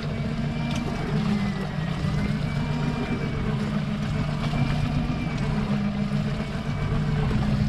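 Motorboat engine running steadily, a low hum with a faint wavering whine above it.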